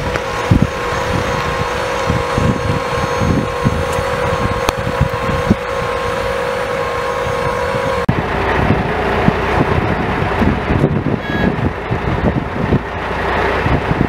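Wind buffeting the microphone in gusts over a steady mechanical hum from idling fire engines at the roadside. The hum drops a little in pitch at a cut about eight seconds in.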